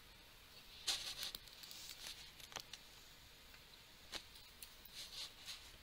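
Faint rustling and a few small, soft clicks over quiet room tone; the most distinct rustle comes about a second in.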